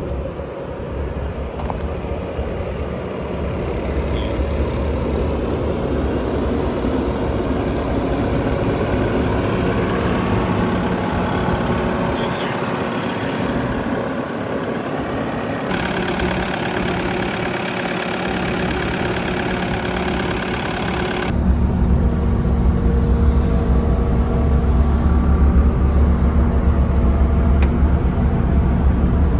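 Bobcat T770 tracked skid steer's four-cylinder diesel engine running steadily. The sound changes abruptly about sixteen seconds in and again about twenty-one seconds in, when it becomes louder and deeper.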